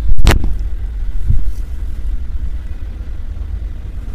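Printed cotton suit fabric shaken out and unfolded, with one sharp swish of cloth just after the start, over a steady low rumble.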